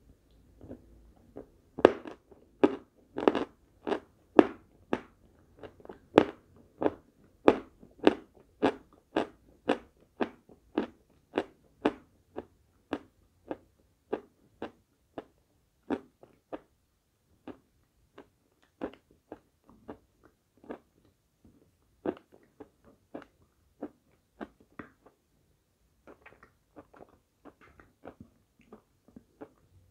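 Close-miked crunching as pieces of edible chalk are bitten and chewed, one or two sharp crunches a second, loudest and most regular in the first half, then sparser and fainter.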